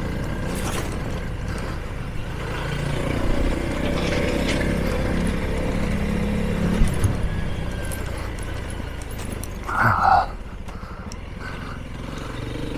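Honda CRF300L single-cylinder trail bike engine running under way on a gravel track, its pitch rising about three seconds in and easing off after about seven seconds, with scattered clicks of gravel under the tyres and a brief louder noise about ten seconds in.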